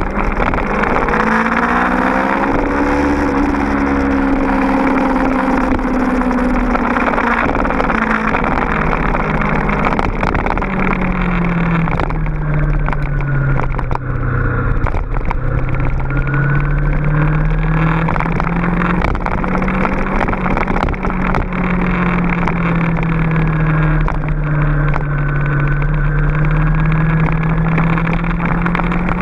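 Honda VFR800FI's 90-degree V4 engine under way. Its note rises and falls as the bike accelerates and eases off through a series of bends, over a steady rush of wind and road noise.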